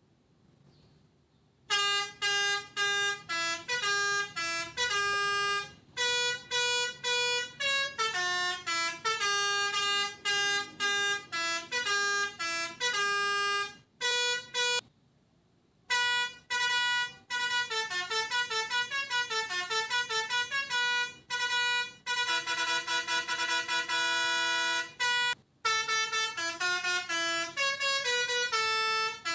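A telolet basuri bus-horn tune played on a pianika (melodica): bright, reedy notes in quick runs and short phrases, with a longer held chord about three-quarters of the way through. It starts a couple of seconds in and breaks off briefly about halfway.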